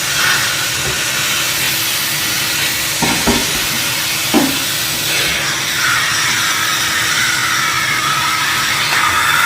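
Vacuum cleaner running steadily with a loud, even rushing of air, and two brief knocks about three and four and a half seconds in.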